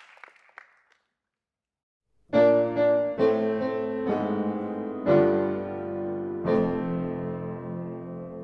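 Applause tails off in the first second and is followed by a short silence. Then slow piano music begins, with a chord struck about once a second and left to ring.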